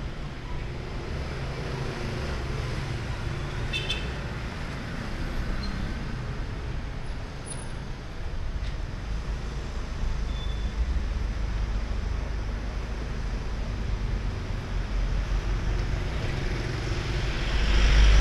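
Street traffic passing: a steady rumble of engines and tyres, growing louder near the end as a vehicle comes close.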